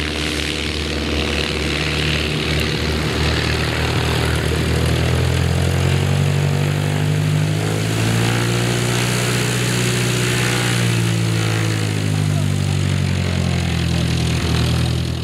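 Piper PA-28-180 Cherokee's four-cylinder Lycoming O-360 engine and propeller at full takeoff power as it rolls, lifts off and climbs away, a steady loud drone whose pitch bends slightly around the middle.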